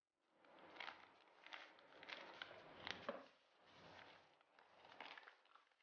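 Faint rustling and crinkling of a plastic-foil Milo sachet being squeezed and shaken as its powder pours out, in about five short spells with small clicks.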